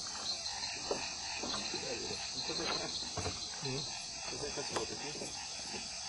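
Night chorus of crickets and other insects, a steady high-pitched buzz, with scattered faint low sounds and a couple of brief clicks.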